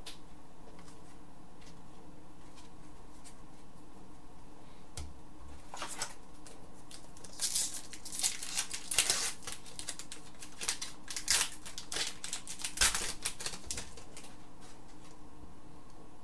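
Hockey trading cards being handled and sorted on a desk: a run of sharp rustles, flicks and clicks in the second half, over a steady low hum.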